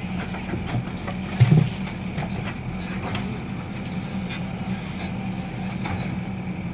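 Heavy diesel machinery running steadily, with scattered clanks and one louder knock about one and a half seconds in.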